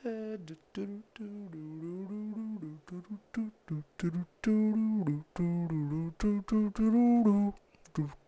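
A man humming a wordless tune, a string of short and longer held notes that rise and fall in pitch.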